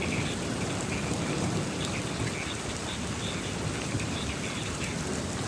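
Rain falling steadily, an even hiss of drops on surfaces with no single loud event.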